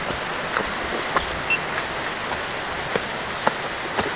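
Steady hiss of running water, with scattered sharp clicks and taps every half second or so.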